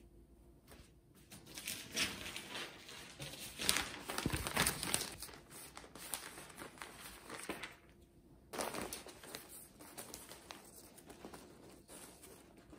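Crinkling and rustling as something is handled, in irregular crackles with many small clicks, with a short pause about eight seconds in.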